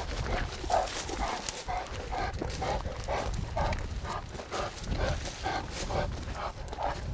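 Large Kangal shepherd dog panting in quick, even breaths, about two to three a second, while walking, with footsteps crunching on gravel.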